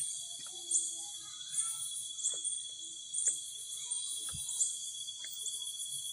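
Night insects calling: a steady high-pitched trill with crickets chirping in repeated pulses above it, and a few faint knocks underneath.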